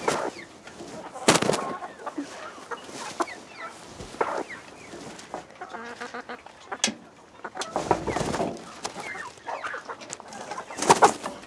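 A domestic hen clucking in short, irregular calls while being carried and set down on a nest box, with a few rustles and knocks, the loudest near the end.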